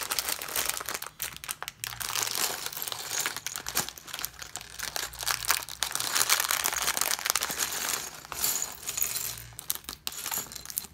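Thin plastic LEGO parts bags crinkling and rustling as hands handle and pull them open, with many small clicks mixed in, dying down near the end.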